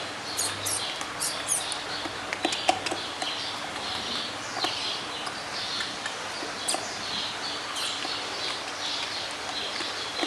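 Many small birds chirping continuously in a busy chorus, with scattered sharp clicks and ticks.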